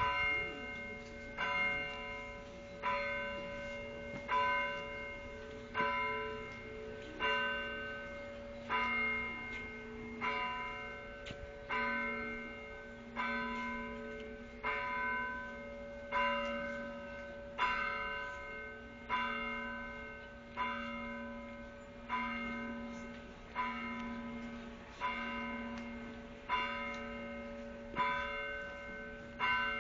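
Bells ringing in a steady slow rhythm: one stroke about every second and a half, each ringing on and fading. A lower, continuous bell hum sounds beneath the strokes.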